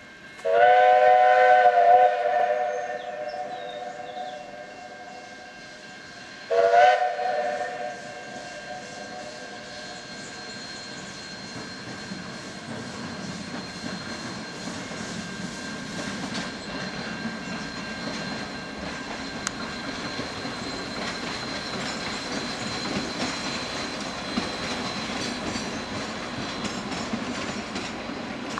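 Steam locomotive whistle blown twice, a long blast and then a shorter one about six seconds later, several pitches sounding together. Then the approaching steam train's rolling sound grows slowly louder.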